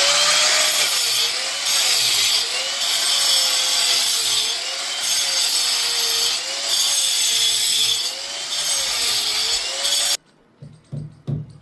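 Electric disc cutter cutting a channel into a wall for plumbing pipes: a loud, steady grinding with the motor's hum dipping and recovering again and again as the disc bites into the wall. It stops abruptly about ten seconds in.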